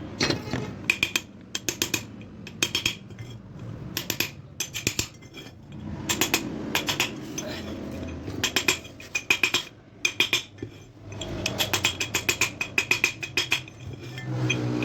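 Light hammer taps on a punch, sharp metallic clinks in quick runs of several strikes, staking the worn bearing seat in an old ceiling fan's body so the new bearing will sit tight.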